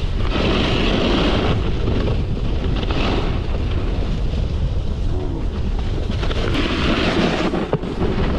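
Wind buffeting the microphone over the hiss and scrape of a snowboard's edges on firm, packed snow, the scraping swelling and fading with each turn.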